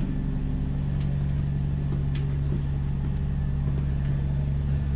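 Double-decker bus engine running with a steady low drone, heard inside the bus. A couple of faint clicks about one and two seconds in.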